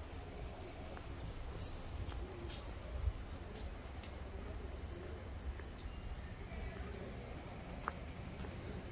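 City street ambience at night: a low steady rumble, with a thin high-pitched trill that starts about a second in and fades out a few seconds later, and a sharp knock about three seconds in.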